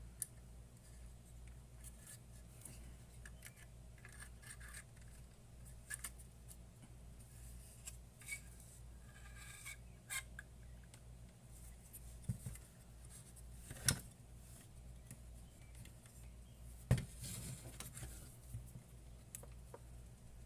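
Faint clicks, scrapes and rubbing of hands handling an electronic instrument's circuit boards and parts, with two sharper knocks about two thirds of the way through, over a steady low hum.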